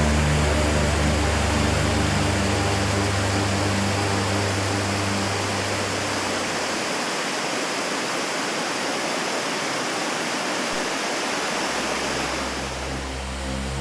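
Waterfall rushing in a steady, loud roar of falling water. Low steady tones sit under it for the first half and come back near the end.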